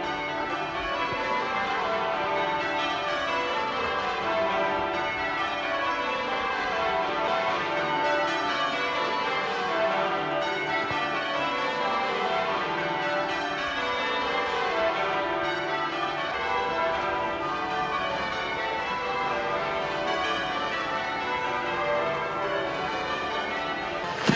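Church bells ringing changes: a full peal of many bells struck one after another in quick, repeating descending runs.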